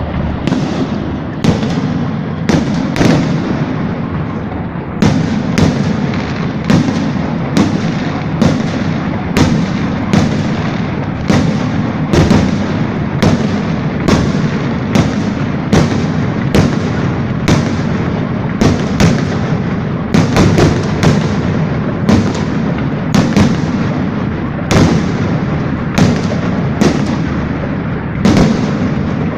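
Fireworks display: shells bursting in a steady run of sharp bangs, about one or two a second, over a continuous rumble and crackle.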